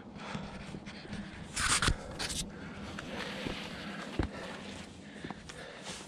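A hiker climbing a steep, rocky trail through mountain pines: panting breath and footsteps, with two short, loud hissing bursts about two seconds in and a low knock about four seconds in.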